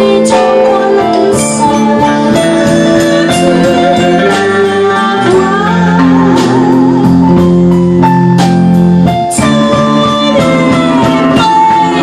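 Live band playing a song: a woman sings, with vibrato on some held notes, over cello, electric guitar, bass guitar and keyboard.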